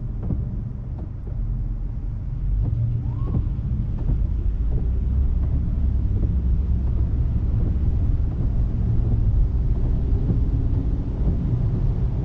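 Low road and tyre rumble inside the cabin of a Tesla Model 3, an electric car with no engine note, as it pulls away on a wet road. It grows louder about two and a half seconds in as the car gathers speed, then holds steady.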